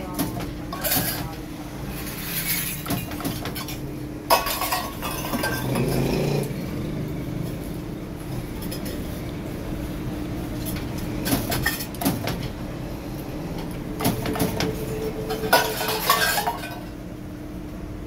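Thin steel kettle body and handle clinking and clicking against the copper arms of a foot-pedal spot welder as a handle is spot-welded on, with a steady low hum underneath. The sharp clicks come several times, most of them in the second half.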